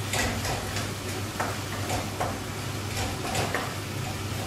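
Spatula stirring potato and capsicum sabzi in a pan on a gas hob: irregular light knocks and scrapes against the pan, a few each second, over a steady low hum.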